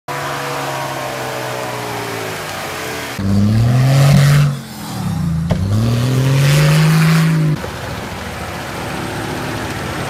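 Off-road SUV engine revving hard under load as the vehicle climbs a slope, its pitch rising, dipping briefly and rising again for about four seconds. A steadier, quieter engine sound comes before and after.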